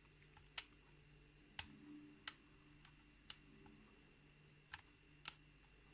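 Faint, separate clicks of a lock pick working the pins of a pin-tumbler challenge lock under tension, about six clicks spread unevenly over a few seconds.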